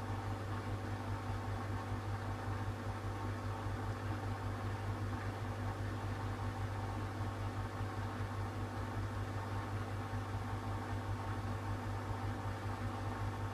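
Schulthess Spirit 6155 front-loading washing machine spinning its empty drum at a steady speed in the spin cycle. It gives a steady motor hum with a low drone, holding the same pitch throughout.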